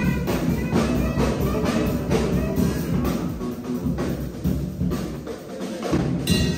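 Live street band of drum kit and saxophone playing a steady beat.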